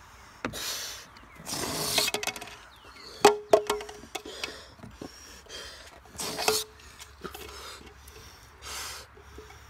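A balloon being blown up and let out in short gusts of rushing air, aimed at a row of plastic cups. About three seconds in there are sharp clacks of a plastic cup knocked over onto a wooden table, and a few lighter knocks later.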